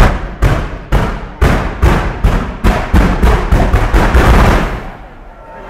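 Ground-level fireworks going off: a quickening series of loud, sharp bangs, more than a dozen. Toward the end they run together into a dense barrage that stops abruptly about five seconds in.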